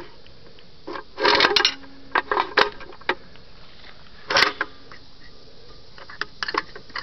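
Metal clicks, rattles and clanks from a 1940s Sun gumball machine's coin slide mechanism as it is worked to dispense candy. There is a cluster of rattling a little after a second in and a sharp clank with a brief ring after about four seconds.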